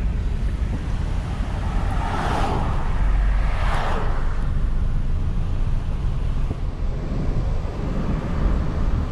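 Steady low rumble of a vehicle driving, with wind buffeting the microphone. Two brief swells of noise come about two and four seconds in.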